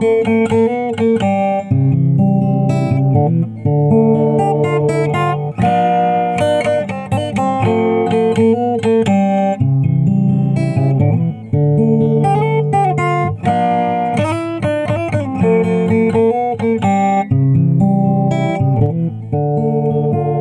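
Background music: guitar playing a steady, repeating melody over chords.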